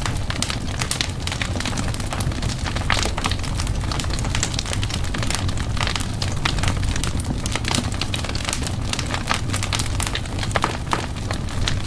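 Wood fire burning in a fireplace: many irregular sharp crackles and pops over a steady low rumble of the flames.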